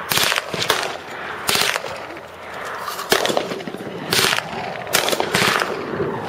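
Machine-gun fire from the firing line: about eight short bursts and single shots, unevenly spaced, each a fraction of a second long.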